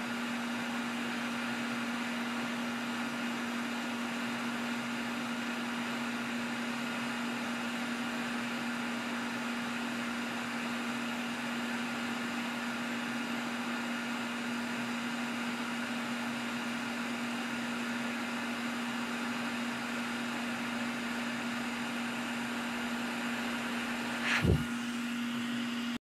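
Hot-air rework station blowing steadily, a rushing hiss over a constant low hum, as it heats the solder to set a fan connector on a circuit board. A short knock comes near the end.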